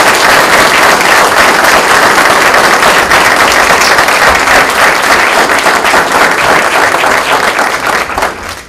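Audience applauding, dense steady clapping that tails off near the end.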